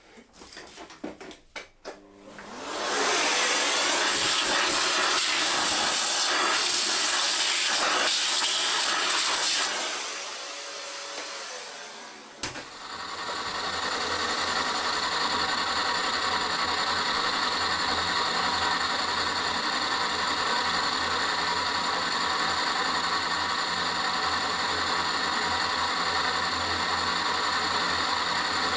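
A shop vacuum-like rushing noise runs for about seven seconds, clearing steel chips off the work. After a dip and a sharp click, the milling machine's spindle runs steadily with gear whine while the end mill cuts a recess in the steel flywheel.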